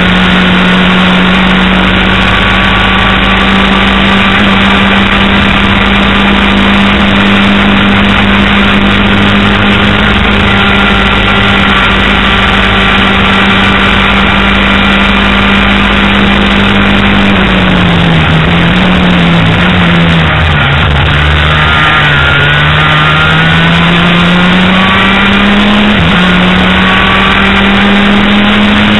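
Racing vehicle's engine heard onboard at high revs, held at a steady pitch, then dropping and wavering as it slows for a corner about two-thirds of the way through, and climbing again as it accelerates out.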